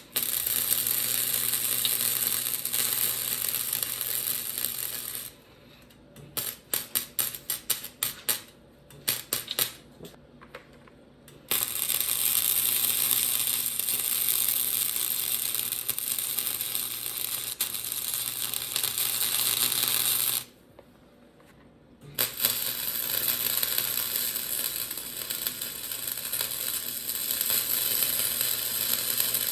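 Electric arc welding on a steel sled frame: a crackling, sizzling hiss that starts and stops with each weld. There is one run of about five seconds, then a string of short tack-weld bursts, then a long bead, a short pause, and welding again near the end.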